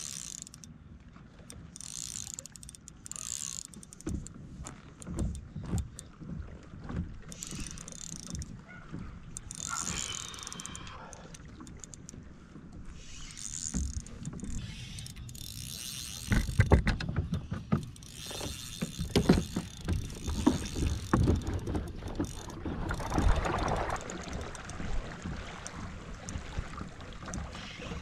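A fishing reel being cranked in bursts while a redfish is fought from a plastic kayak, with knocks and clatter against the hull. The clatter gets louder and busier for several seconds past the middle.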